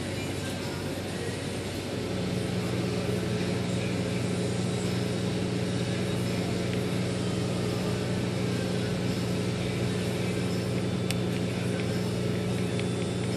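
Steady low machine hum with several droning tones under a hiss, growing louder about two seconds in, with a single sharp click a couple of seconds before the end.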